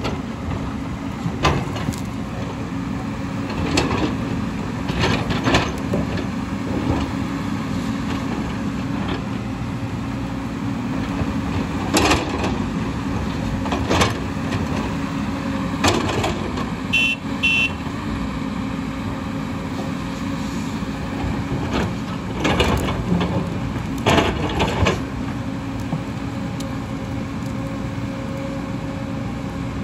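JCB tracked excavator's diesel engine running steadily under load while it digs into a rocky hillside, with irregular sharp clanks and knocks as the bucket strikes and scrapes rock and soil.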